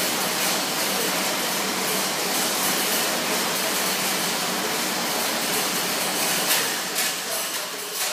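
Schwinn AirDyne fan bike's fan whooshing steadily under hard pedalling, dying away about seven seconds in as the pedalling stops, with a few knocks near the end.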